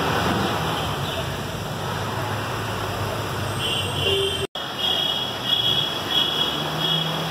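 City street ambience: a steady hum of road traffic with indistinct voices. The sound cuts out completely for a moment about halfway through, and in the second half a high-pitched sound repeats in short pulses.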